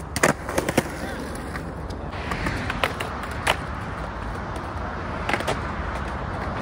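Skateboard on a concrete ledge: a few sharp clacks in the first second, then a steady scrape of the board grinding along the concrete for several seconds, with more clacks along the way.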